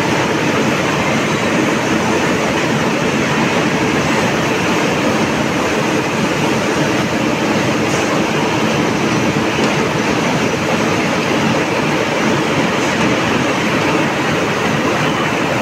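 Hot-rolling mill in operation: steady, loud mechanical running noise of the roller table carrying a red-hot steel bar, with the mill machinery behind it.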